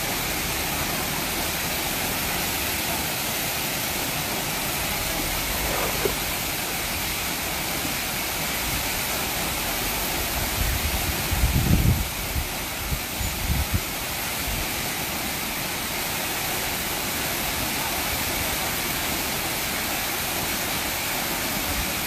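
Waterfall with a heavy flow pouring onto rocks: a steady, even rush of falling water. Brief low thumps on the microphone come about halfway through.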